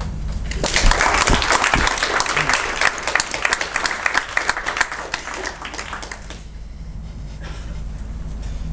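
Audience applauding, starting about half a second in and dying away around six seconds in.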